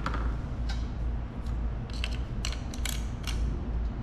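Clutch friction discs and steel separator plates of a Yamaha DT175 clutch clinking as they are stacked onto the clutch hub: a string of light metal clicks, more of them in the second half, over a low steady hum.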